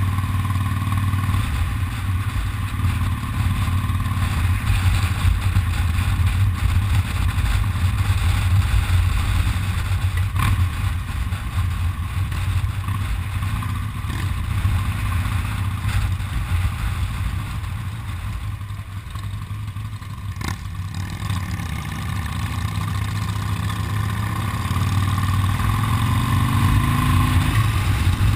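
Motorcycle engine running at road speed, heard from the moving bike with wind and road noise over it. It eases off a little past halfway, then picks up near the end with a rising pitch as the bike accelerates.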